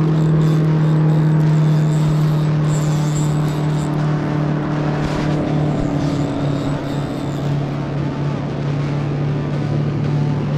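Minn Kota Endura 30 lb-thrust electric trolling motor running with a steady hum, pushing the kayak along.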